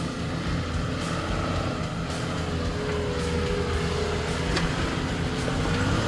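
Toyota Land Cruiser Troop Carrier's engine running steadily at low revs as the 4x4 crawls up a rutted dirt track, growing a little louder near the end as it comes close.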